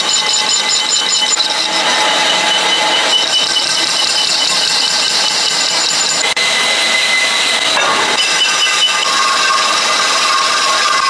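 A power tool running steadily and loudly, with thin high-pitched tones over a dense noise.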